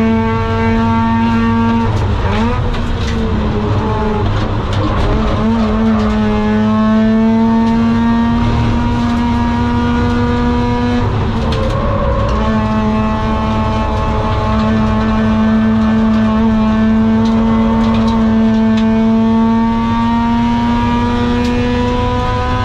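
Mazda RX-8's four-port 192 PS two-rotor rotary engine running hard on track, its note climbing slowly in pitch under throttle. The note goes ragged and unsteady from about two to six seconds in, and dips and breaks briefly near eleven seconds before pulling up again.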